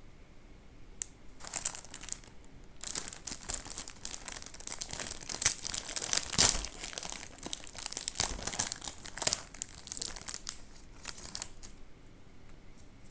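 Thin plastic wrapper of a pink Oreo snack pack crinkling as gloved hands pull it open. The crinkling starts about a second in, pauses briefly, then goes on densely before dying away near the end.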